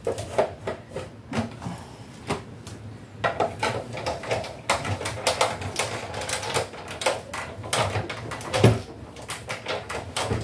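Manual die-cutting machine cranking a metal cutting die and paper through its rollers, giving an irregular run of clicks and clacks that grows busier about halfway through.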